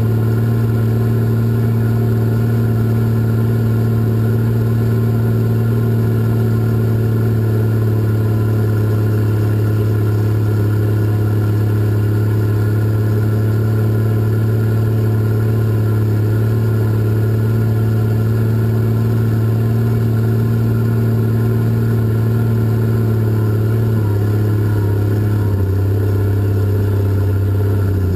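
Cat 627 scraper's diesel engine running steadily, heard from inside the cab. About 24 seconds in the engine note drops to a lower pitch.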